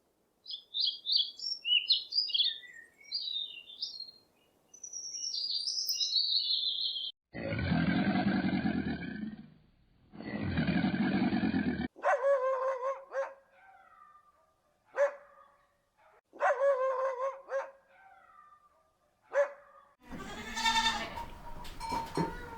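A run of different animal calls one after another: high bird chirps first, then two long low calls about two seconds each, then a string of shorter pitched calls.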